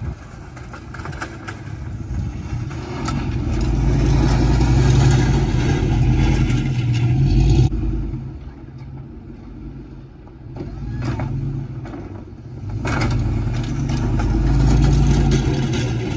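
Pickup truck with a front snowplow plowing snow, its engine working hard and growing loud twice. It drops off sharply about eight seconds in, then builds again toward the end.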